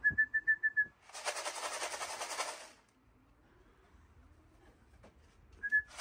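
A person whistles a quick run of about six short, even notes to call racing pigeons in, followed by a rapid rattle lasting about a second and a half; a single whistle comes again near the end.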